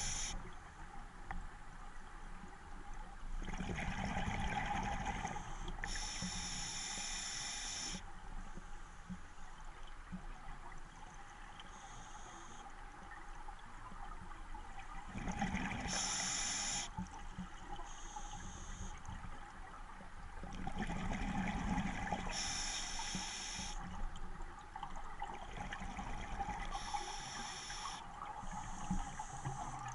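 Diver breathing through a scuba regulator underwater: low bubbling bursts as exhaled air escapes, each followed by a high hiss of the inhale, a few slow breaths in all.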